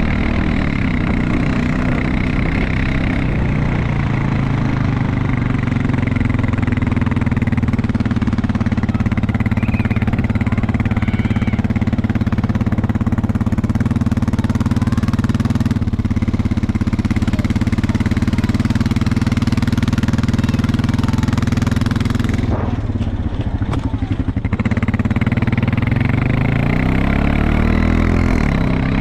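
Four-wheeler (ATV) engine running steadily at low speed. It eases off briefly about three-quarters of the way through, and its pitch shifts up and down near the end.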